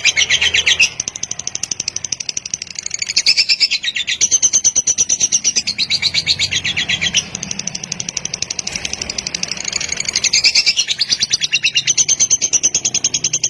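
Lovebird in its long 'kekek panjang' chatter: a rapid, unbroken string of high chirps, many per second, that shifts pitch and pattern about a second in, again around seven seconds, and near ten and a half seconds.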